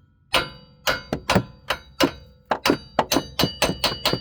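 Hammer blows on the rear wheel hub, about three a second, each with a short metallic ring: tapping out a worn hub that has started to separate from its mount.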